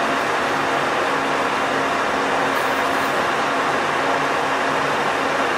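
Metal lathe running steadily under power, a constant mechanical hum and whir with a faint low tone, as a drill in the tailstock chuck works into the end of a plastic bar.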